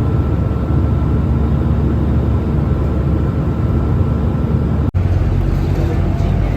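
Steady low rumble of a vehicle in motion, with faint steady tones over it. It cuts out for an instant about five seconds in, then a similar rumble carries on.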